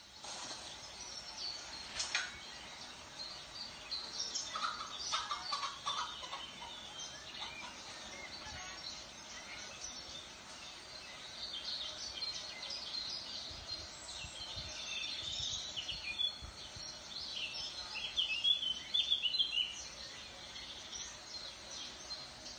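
Birds chirping and calling, with a lower run of calls about five seconds in and a busier patch of chirps near the end.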